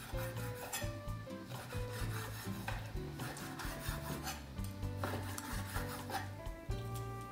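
Chef's knife slicing through raw boneless chicken thigh and striking a wooden cutting board in repeated strokes.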